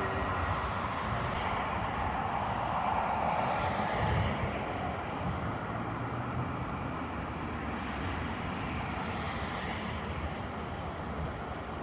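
Road traffic passing on a wide multi-lane street: a steady wash of tyre and engine noise that swells about three seconds in and again about nine seconds in.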